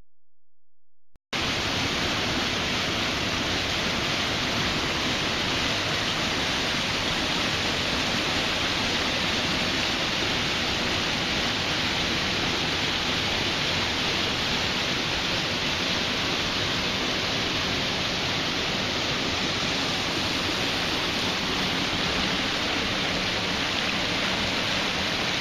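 A mountain stream rushing over rocks in small whitewater cascades: a steady, even rush of water that cuts in abruptly about a second in.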